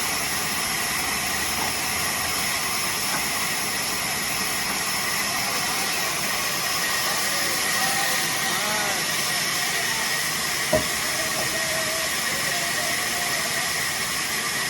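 Steady machine hiss with a constant high-pitched whine, and one sharp click about eleven seconds in.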